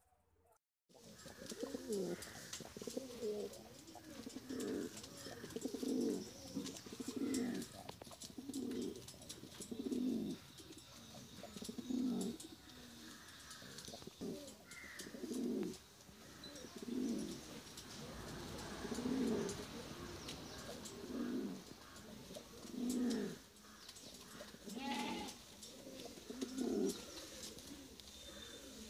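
Domestic fancy pigeons cooing: a long run of low, repeated coos, one about every second and a half.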